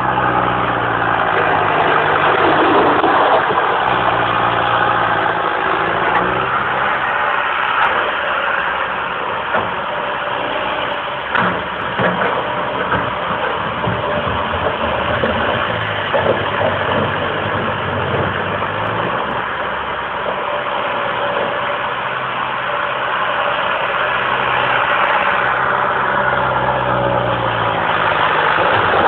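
Komatsu PC150 tracked excavator working, its diesel engine running steadily and rising and falling in pitch as the boom and bucket move. A few sharp knocks around the middle, the bucket striking river rocks.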